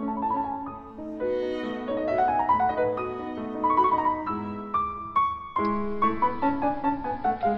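Background instrumental music, a soundtrack of quick rising runs of notes.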